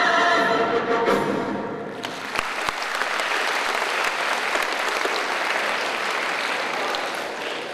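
A stage song with backing music ends on a held final chord, then a theatre audience applauds. The clapping fades near the end.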